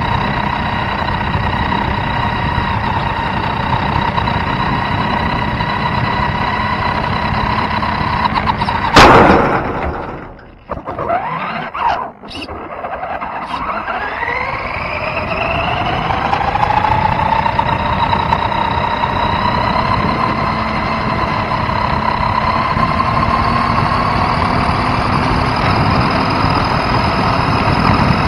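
RC car's small two-stroke fuel engine running at a steady high pitch. About nine seconds in there is a loud knock, the engine note drops away, then it climbs in pitch as the car speeds up again and holds steady.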